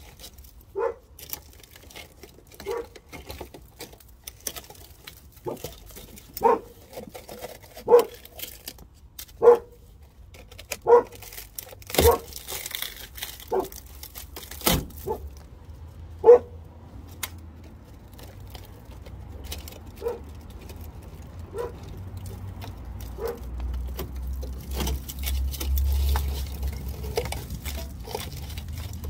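A dog barking repeatedly, single short barks a second or so apart, thinning out in the second half, over the crackle and tearing of rotten, rusted sheet-steel sill being pulled apart and crumbled by hand.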